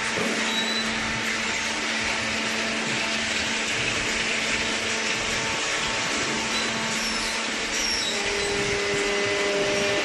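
Steady running noise of waste-paper baling machinery, a hydraulic cardboard baler line, an even rush with a constant low hum under it; a second, higher hum joins about eight seconds in.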